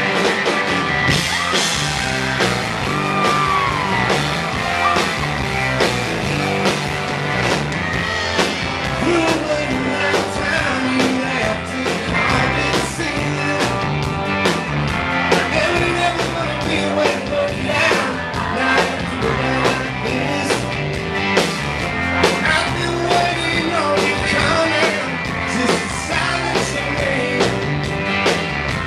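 Live rock band playing a song at full volume: electric guitar, bass guitar and drums with cymbals, amplified through a club PA.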